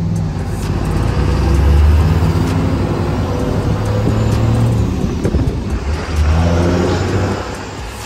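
Pickup truck engine heard from inside the cab, pulling hard twice as the truck accelerates: the sound swells about two seconds in and again just past six seconds, then eases off near the end.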